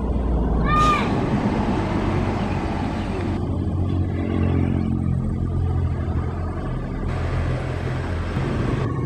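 Tour bus engine droning as it drives past in road traffic, with a short horn beep about a second in.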